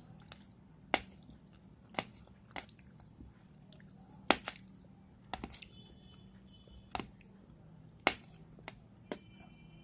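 A knife cutting boiled gram-flour dumplings into small pieces, its blade striking the board or plate in sharp, separate taps about once a second.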